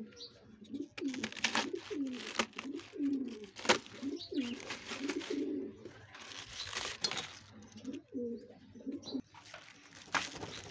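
Pigeons cooing over and over in low, rolling calls, with several sharp cracks and knocks from a large knife cutting through a head of cabbage. The loudest crack comes a little under four seconds in.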